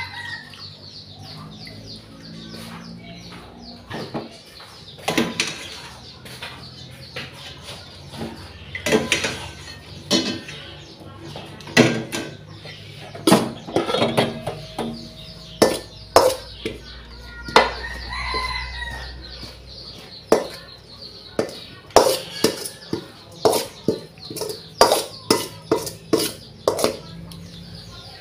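Metal spoon and metal mixing bowl clattering and scraping in a run of sharp knocks, denser in the second half, as cooked dumplings are tossed in grated coconut. A rooster crows at the very start and again about 18 seconds in.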